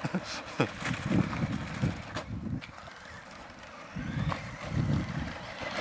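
Radio-controlled toy cars running on a wet, gritty path, with uneven gusts of wind buffeting the microphone.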